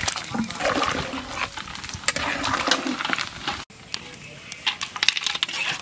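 Fried potato and cauliflower pieces tipped from a pan into a large pot of boiling curry broth: splashing and bubbling liquid with clatters of the pan. About four seconds in it cuts off suddenly to quieter scattered clicks.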